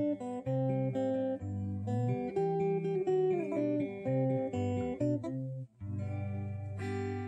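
Guitar played through a Peavey XR 680C mixer amp into a Blackstar 12-inch speaker, as a sound test of the amp after cleaning its pots, jacks and sliders. It plays picked single-note lines with a bent note about three seconds in, then a chord struck about six seconds in and left to ring.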